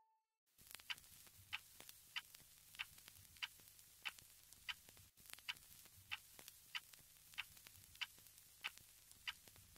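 Faint, evenly spaced clicks, about three every two seconds, like a clock ticking, over near silence.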